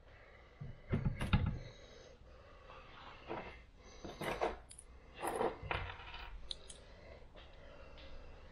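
Metal clinks and knocks from a car seat frame and steel swivel base being handled and shifted into place, with the loudest knock about a second in and several lighter clinks after it.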